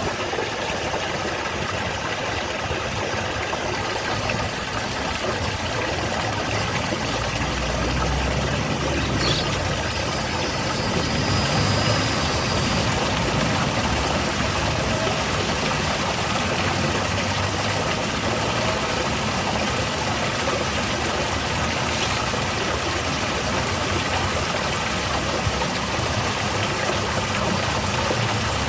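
Garden waterfall cascade with water splashing in a steady, even rush, and a low rumble underneath that comes and goes.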